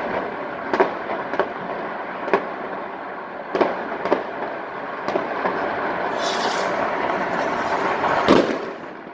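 New Year's Eve fireworks and firecrackers: a steady din of crackling and distant bangs with sharp single bangs every second or so, a brief hiss about six seconds in, and the loudest bang a little past eight seconds.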